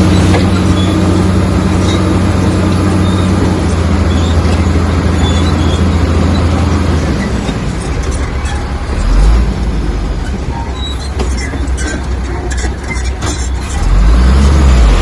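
Heavy earthmoving machine's diesel engine running at a steady pitch, dropping away about halfway through. After that come scattered knocks and clatter and low rumbles, the loudest rumble near the end.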